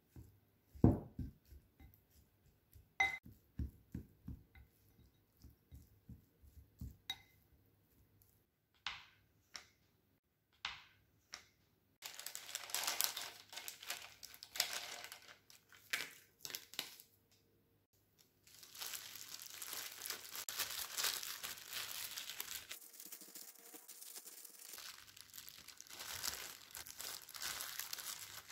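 A spoon knocking and scraping against a glass bowl as seasoned rice is stirred. Then a crinkling plastic pack as sheets of dried seaweed are drawn out, and later the steady crinkling of disposable plastic gloves as rice is pressed and spread on the seaweed.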